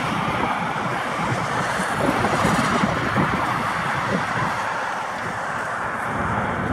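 Steady rushing noise of road traffic from an adjacent highway, swelling a little around two to three seconds in.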